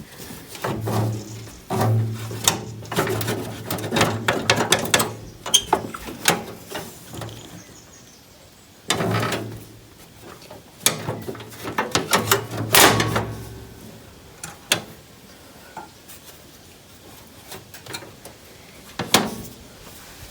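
Bursts of knocking and clattering in two busy spells, with a single sharp knock near the end.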